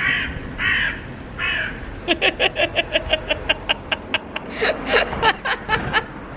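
A crow cawing three times, then a quick run of giggling laughter.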